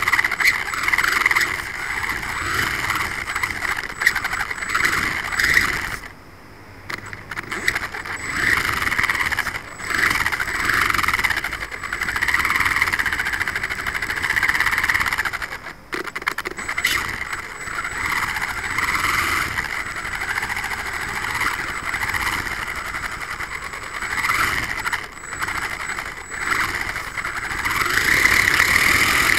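Losi 1/24-scale RC car's brushless motor and drivetrain running, heard close up from a camera mounted on the car. The sound swells and fades as the throttle changes, with tyres rolling on concrete, and it drops away briefly about six seconds in and again near sixteen seconds.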